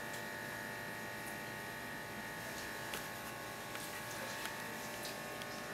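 A steady electrical buzz in a small room, with a few faint clicks.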